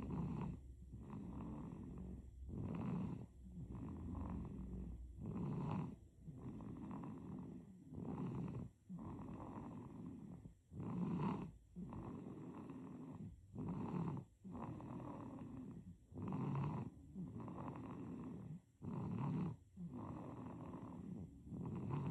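A baby snoring in sleep, a steady rhythm of about eight breaths, one every two and a half to three seconds. Each breath starts louder and eases off before a brief pause.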